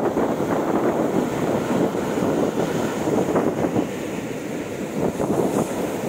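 Rough surf breaking and churning onto the shore: a steady, loud rush of water.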